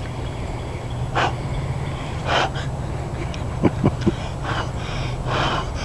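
A few short breathy puffs of noise and three quick sharp clicks close together about halfway through, over a steady low rumble; no gunshot.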